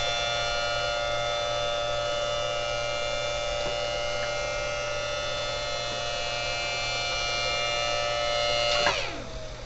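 3D-printed miniature Thunderbolt tornado siren sounding a steady tone made of many pitches while its horn rotates. About nine seconds in it is switched off and the tone falls away quickly, one pitch sliding down as it winds down.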